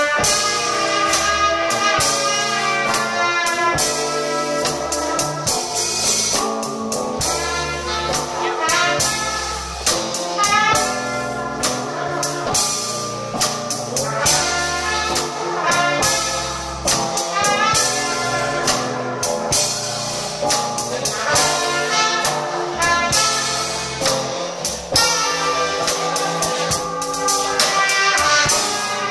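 Live band playing jazz: brass lines, trumpet and trombone, over a drum kit's steady beat.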